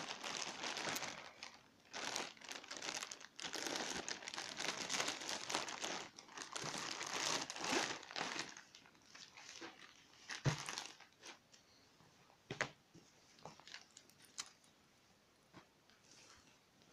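Clear plastic packaging bag crinkling and rustling as it is handled and opened. Dense crinkling for about the first nine seconds, then only scattered rustles and clicks.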